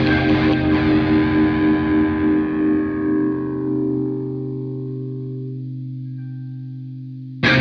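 Overdriven electric guitar played through a Hughes & Kettner Tube Rotosphere rotary-speaker pedal: a held chord with a wobbling rotary swirl rings out and slowly dies away, then a fresh chord is struck sharply near the end.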